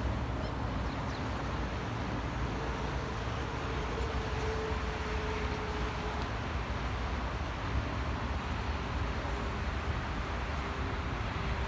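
Steady road-traffic noise: a low vehicle rumble with a faint whine that comes and goes.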